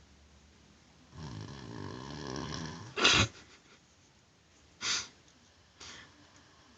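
Someone asleep snoring: a long rattling snore on the in-breath for about two seconds, then a sudden loud burst of breath about three seconds in, followed by two shorter, weaker puffs.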